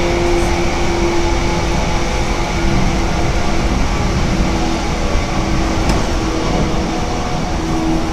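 Running noise of a 185-series electric multiple unit heard from inside the passenger car: a steady low rumble of wheels on rail with a constant hum over it, in a tunnel.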